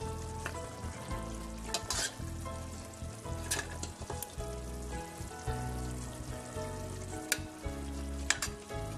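Turkey meat sizzling in a hot pot as it is stirred and lifted out, with a few sharp clicks of a utensil against the pot. Soft background music plays underneath.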